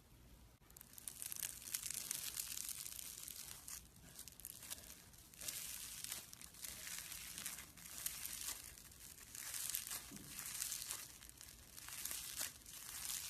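Slime being worked by hand, giving a soft crackling, crinkly squish that swells and fades in waves every second or two.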